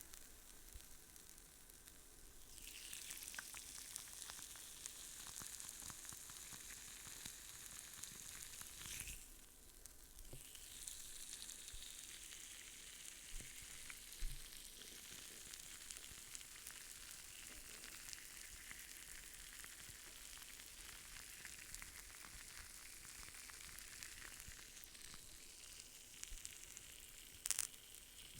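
ASMR massage sounds close to the microphone: a soft, continuous crackling rub like sizzling. It swells a couple of seconds in and eases off briefly about nine seconds in.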